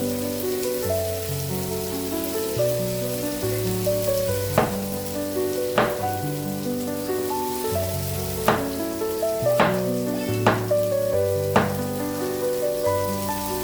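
Background music of held chords over a stepping bass line, with a steady hiss beneath it. Six sharp knocks are scattered through the second half.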